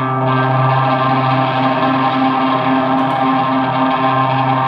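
Electric guitar played through effects pedals, holding one steady, synth-like note with many overtones, built out with heavy reverb into a Game Boy-style 8-bit tone.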